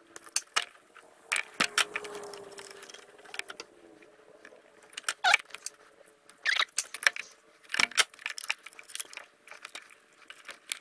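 Irregular sharp clicks and snips of a hand wire crimping and stripping tool, with the small metallic rattle of wires and butt-splice connectors being handled, as one wire after another is cut, stripped and crimped into a heat-shrink butt splice. A faint steady hum runs underneath.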